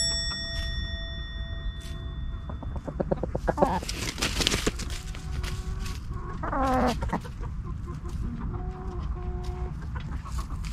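Chickens, a rooster and a hen, clucking: a drawn-out falling call a little past the middle, and a few short clucks near the end.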